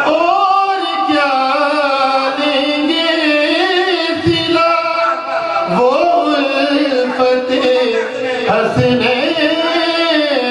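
A man singing a devotional Urdu poem in praise of Fatima into a microphone, in a slow melodic line with long held notes that bend up and down.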